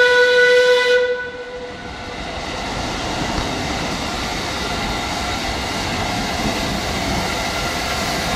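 Steam whistle of the Metropolitan Railway steam tank locomotive Met No. 1, holding one steady note that cuts off about a second in. Then comes the running noise of the approaching locomotive, steam and wheels on rails, which grows louder over a second or so and holds steady.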